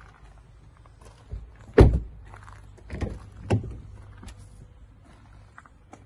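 A few dull thuds and clunks of a car door and bodywork being handled: a heavy thud about two seconds in, and smaller knocks a second and a second and a half later.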